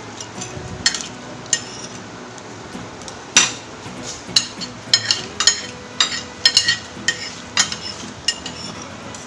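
Fork and plate clinking and scraping as a meal of fried rice and chicken is eaten: irregular sharp clicks, a few at first and many more from about three seconds in.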